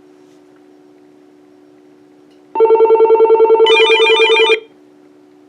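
Uniden EXS2080 cordless phone ringing on an incoming call: one burst of a fast electronic trill about two seconds long, with a second, higher trill joining about halfway through. It is the ordinary ring, with no distinctive caller-ID-match ring. A faint steady hum runs underneath.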